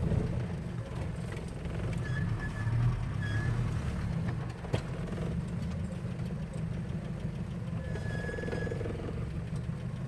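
Off-road 4x4's engine running low and steady as the vehicle creeps along a rough dirt track, with a single sharp click about five seconds in.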